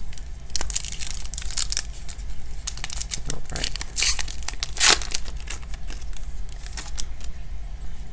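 Plastic wrapper of a trading-card pack being torn open along its crimped end and crinkled, a series of ripping and crackling sounds with the loudest rip about five seconds in.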